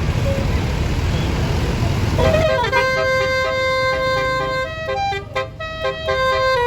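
Low rumble, then about two seconds in a tourist bus's roof-mounted Basuri telolet musical air horn starts playing a melody of held notes, changing pitch every second or so.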